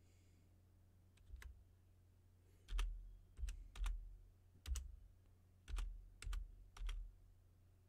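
Slow typing on a computer keyboard: about eight separate keystrokes, each a sharp click with a soft thump, at uneven intervals of roughly half a second to a second.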